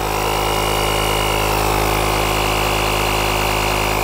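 Small electric air compressor built into a JF.EGWO 4000A jump starter running steadily while inflating a car tyre, topping it up by one PSI to 65. It is a steady motor drone with a thin, high whine over it.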